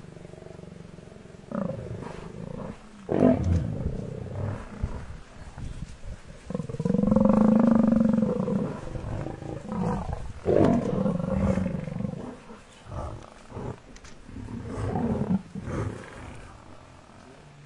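Lions growling and snarling in short, sudden outbursts over a downed African buffalo cow. About seven seconds in comes a long drawn-out pitched call, the loudest sound.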